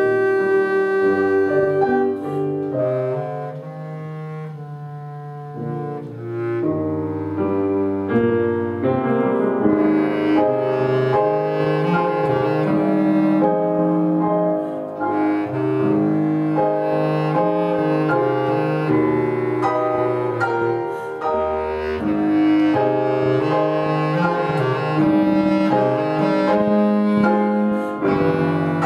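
Bass clarinet playing sustained low-register melody lines with grand piano accompaniment. The music softens briefly about four to six seconds in, then returns to full level.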